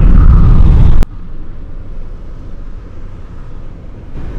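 Loud low rumble inside a pickup truck's cab. It cuts off abruptly with a click about a second in, leaving a much quieter low rumble.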